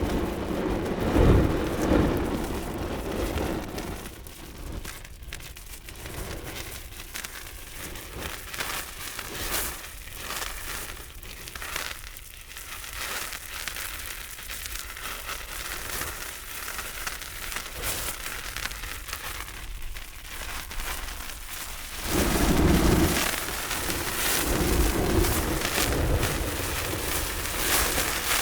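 Fire burning: a dense stream of crackles and pops over a low rumble, with louder low surges of flame in the first few seconds and again from about 22 seconds in.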